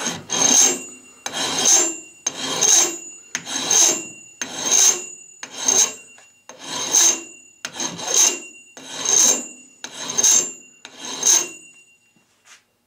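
Double-cut flat bastard file rasping across a soft aluminum casting clamped in a vise, about eleven long strokes roughly one a second, then stopping. Each stroke carries a faint high ringing, the sign of the work vibrating because it sticks out too far from the vise jaws.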